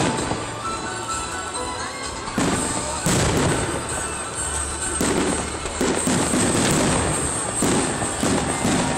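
Fireworks going off: a run of sudden bursts with crackling, starting about two and a half seconds in and repeating every second or so.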